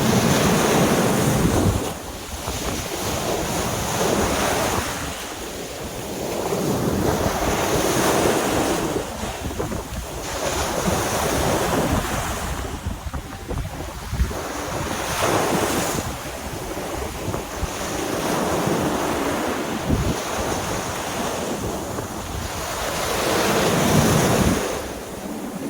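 Storm surf breaking and washing up a beach in strong wind. The wash of the waves swells and ebbs about every five or six seconds, with wind buffeting the microphone in a low rumble.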